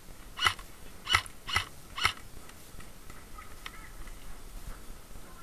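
Airsoft gun fired in single shots: four sharp cracks with a short metallic ring, about half a second apart, within the first two seconds.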